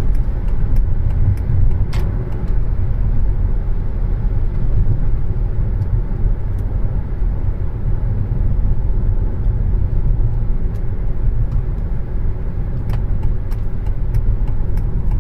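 Cabin sound of a 2007 BMW X3 3.0si on the road: steady low engine and road rumble, with a few light clicks, one about two seconds in and several near the end.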